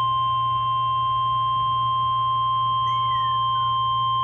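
NOAA Weather Radio's 1050 Hz warning alarm tone: a single steady, unbroken tone from a weather radio's speaker. It signals that a warning-level alert, here a severe thunderstorm warning, is about to be read.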